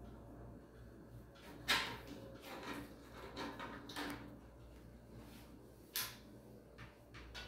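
Clicks and clatter of pliers working on electrical wires at an electric water heater: one sharp click about two seconds in, a run of smaller clicks after it, and another sharp click about six seconds in.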